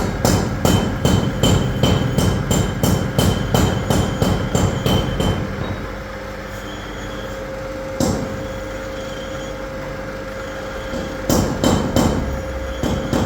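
Sharp knocks repeating about three to four times a second, stopping for several seconds while a steady hum with a held tone runs, then starting again near the end.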